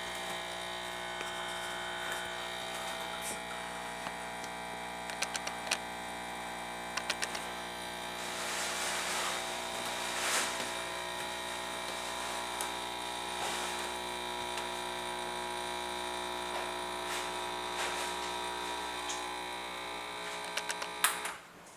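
Espresso machine's pump humming steadily as an espresso shot is pulled, with a few light clicks along the way, then cutting off suddenly with a click near the end as the shot is stopped.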